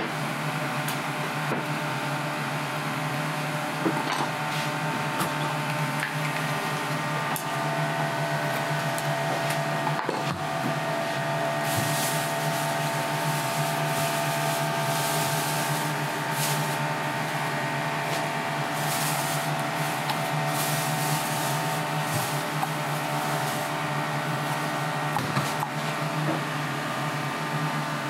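Steady mechanical hum of kitchen equipment, with several constant tones, and patches of soft high hissing from about twelve seconds in.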